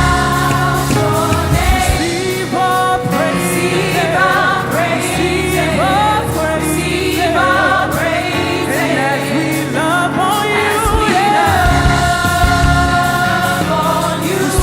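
Gospel praise-and-worship music: a group of singers performing a slow, sustained melody over instrumental backing with held bass notes.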